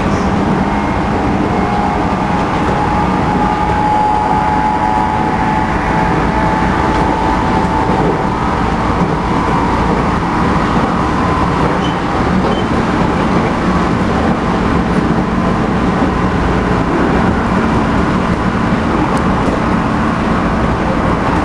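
Running noise inside a JR Central 211 series motor car (MoHa 210) at speed: a steady rumble of wheels on rail with the MT61 traction motors' whine running through it. This car is known for abnormal noise, a strong undulating, beating motor sound.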